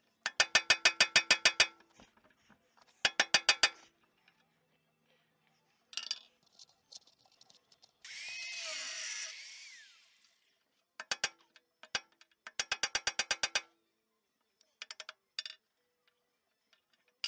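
Hammer striking a steel punch to drive a spiral pin out of a dozer blade cylinder's clevis: runs of quick, ringing metal-on-metal blows, about eight a second, coming in four bursts. A scraping rustle of about two seconds lies between the second and third bursts.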